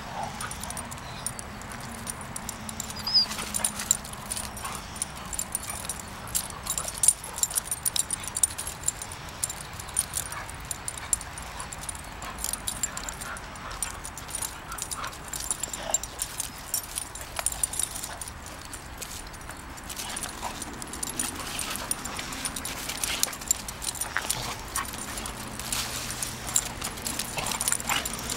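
Two dogs play-fighting on gravel: irregular scuffling and crunching of paws on the gravel, with occasional short dog vocalisations.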